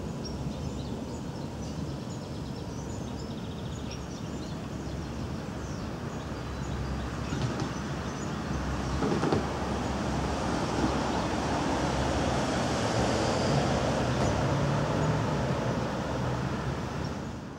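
Street trams and road traffic running at a distance, a steady rumble that grows louder through the second half. Faint bird chirps sound in the first few seconds.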